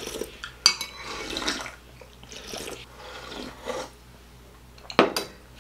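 People slurping soup and milk straight from glass bowls, in several short noisy pulls, with a sharp click near the end.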